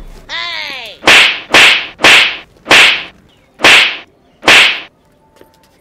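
Six loud whip-crack sound effects, one after another about half a second apart with a longer gap before the fifth, as the bent-over students are struck on the back. They come after a short falling whistle-like glide.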